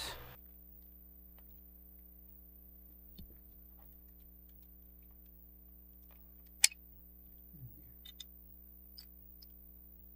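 Small clicks and taps of plastic toy parts handled and fitted together by hand while a Radio Shack Armatron robot arm's gearbox is reassembled, over a faint steady hum. One sharp click about two-thirds of the way through is the loudest, with a few lighter ticks after it.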